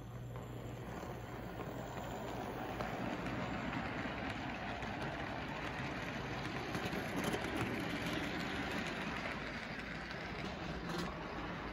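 Tyco HO-scale model train running on the layout track, a steady mechanical rattle and whir of motor and wheels that grows louder through the middle as the locomotive and cars pass close by, then eases slightly near the end.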